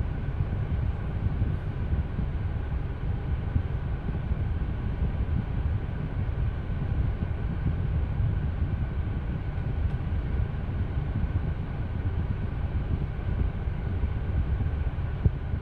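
Kia Picanto's engine idling, heard from inside the cabin: a steady low rumble that holds even throughout.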